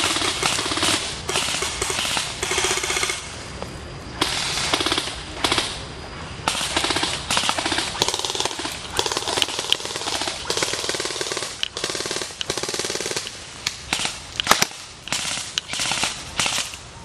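Airsoft rifles firing: several bursts of rapid, evenly spaced shots mixed with single shots, and one especially loud crack late on.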